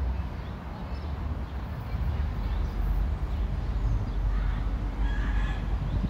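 Outdoor city ambience: a steady low rumble with a few short bird chirps scattered through it.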